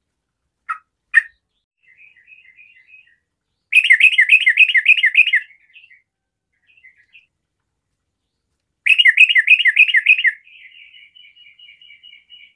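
Yellow-vented bulbul (trucukan) singing: a few short sharp calls, then two loud bursts of rapid, bubbling repeated notes a few seconds apart, each trailing off into softer chattering.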